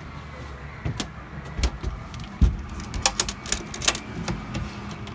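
A string of sharp clicks and knocks, thickest in the second half, with a few dull thumps, over a steady low hum.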